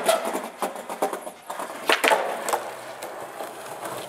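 Skateboard trick on a low concrete ledge: a sharp clack of the board at the start, a scrape along the ledge, then louder clacks as the board lands about two seconds in, followed by wheels rolling on concrete.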